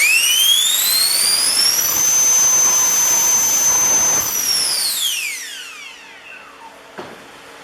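JP 120mm CNC all-metal electric ducted fan on 14S spooling up fast to a high whine. The whine keeps climbing for about two seconds and holds steady, then winds down from about four seconds in as the throttle is cut. A single click comes near the end.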